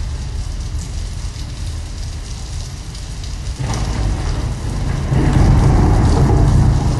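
Motorboat under way: a steady low rumble with a hiss over it. About three and a half seconds in, a fuller sound comes in and grows louder near the end.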